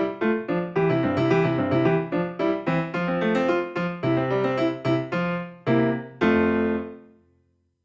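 Background piano music playing a quick run of notes, ending on a held final chord that fades away near the end.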